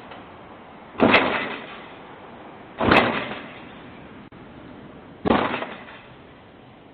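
Three sudden loud bangs, about two seconds apart, each dying away over half a second or so.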